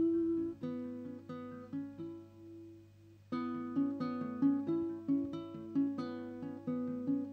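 Instrumental break on a small acoustic plucked-string instrument: a picked melody of single notes, sparse and soft at first, then louder and busier from about three seconds in.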